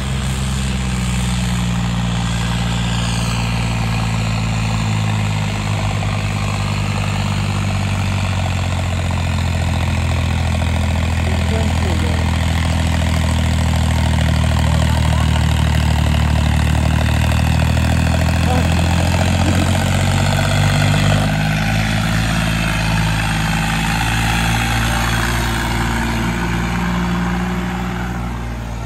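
Tractor diesel engine running hard and pulling a heavy trolley, with a steady low engine note. It gets louder through the middle and eases off after about twenty seconds.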